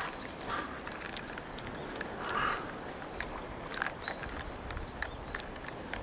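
Steady high insect drone, with two short, rough animal calls, one about half a second in and one about two and a half seconds in, and a few sharp clicks near the end.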